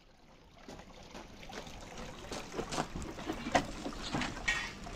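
Water splashing and trickling, faint at first and growing over the first two seconds, with irregular sharper splashes in the second half.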